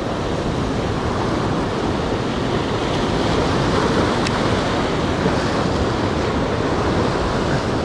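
Surf washing against a rocky shore, a steady rushing noise with wind on the microphone.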